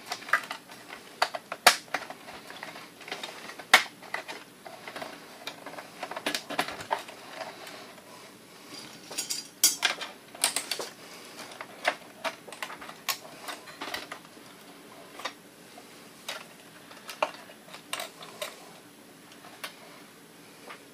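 Irregular clicks, taps and light rattles of small metal and plastic parts and a screwdriver being handled inside a Kodak Carousel 760H slide projector during disassembly, with a busier cluster of clatter about ten seconds in.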